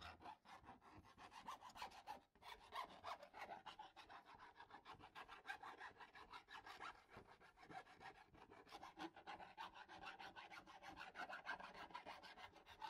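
A hand file rasping along the freshly cut edge of a Ford E350 van's sheet-metal roof, in many short, faint strokes, deburring the rough edges of the fan opening.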